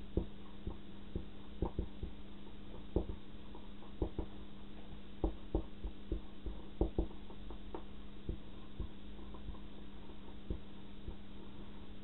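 Marker pen writing on a handheld whiteboard: irregular short taps and scrapes as the letters are drawn, over a steady low hum.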